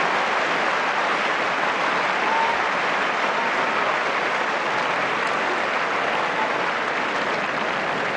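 Tennis stadium crowd applauding steadily, a dense, even clapping throughout.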